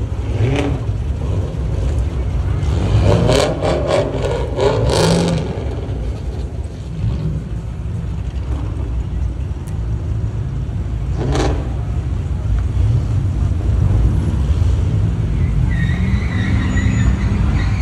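Many car engines running at a street takeover, making a steady low rumble with occasional revving. There is a burst of louder noise about three to five seconds in.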